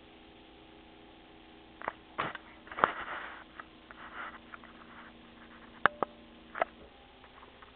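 A few sharp knocks and clicks with short bits of rustling, the loudest about three seconds in and just before six seconds, over a faint steady hum: handling and movement noise in a small room.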